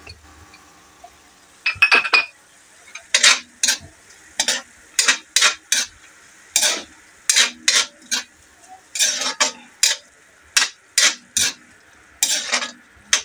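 A metal spoon scrapes and stirs frying pork in a metal wok, over a faint steady sizzle. The first scrape comes about two seconds in, and then the strokes run about every half second.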